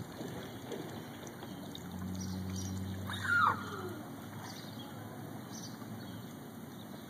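Pool water splashing and trickling as a toddler climbs out of the pool, with a low steady hum for a couple of seconds in the middle and one short high call that glides down about three seconds in.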